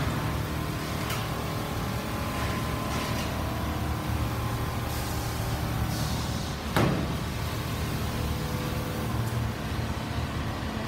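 Industrial quilting machines running in a large workshop: a steady low mechanical hum with a few light clicks, and one sharp knock about seven seconds in.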